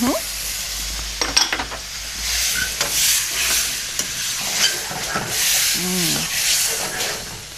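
Chicken and vegetables in curry sauce sizzling in a hot wok, coming up to the boil, while a metal ladle stirs them, with a few clinks of the ladle against the wok.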